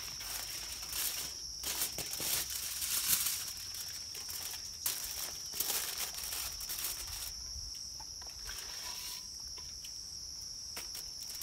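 Steady high-pitched buzz of insects calling, with aluminium foil crinkling as it is handled and spread out during the first seven seconds or so.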